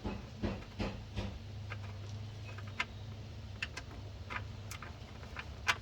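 Irregular light metallic clicks and ticks as the oil drain plug is worked loose with a magnetic drain-plug tool, with a few louder knocks in the first second or so over a faint low hum.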